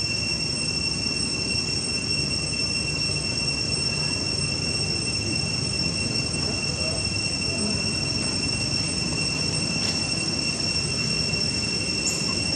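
Steady high-pitched insect drone: one unbroken whine with an upper overtone, over a low outdoor rumble.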